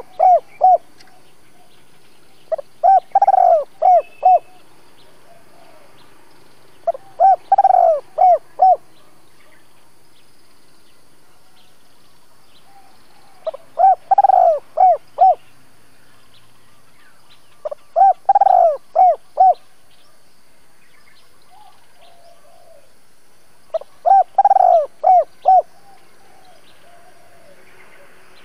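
Spotted dove cooing its song: a phrase of one short note, a drawn-out coo that bends up in pitch, then three or four quick short notes. The phrase comes about every four to six seconds, five full times plus the tail of one at the start. It is a decoy bird's 'double-voice' calling song, used to draw wild doves.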